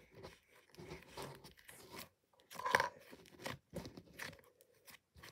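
Yellow butter slime being stretched, folded and squished by hand, giving irregular sticky squelching and crackling sounds, with a louder squelch a little past the middle.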